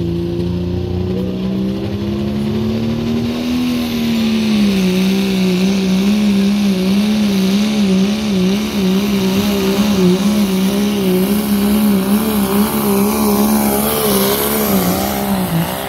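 Dodge Ram diesel pickup at full throttle dragging a weight-transfer pulling sled. Its engine note climbs over the first few seconds, then holds high with a fast, regular up-and-down waver, and drops away as the throttle comes off at the very end.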